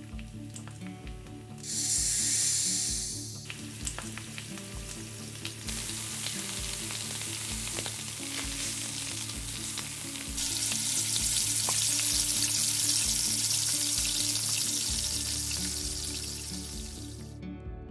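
Food sizzling as it fries, in bursts: a short loud sizzle about two seconds in, then a steadier sizzle that swells about ten seconds in and cuts off suddenly near the end. A soft music bed with a steady low beat runs underneath.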